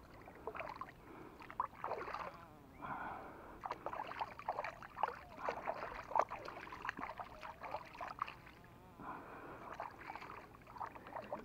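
Shallow water splashing and sloshing in irregular bursts as a peacock bass is rubbed and rinsed clean by hand.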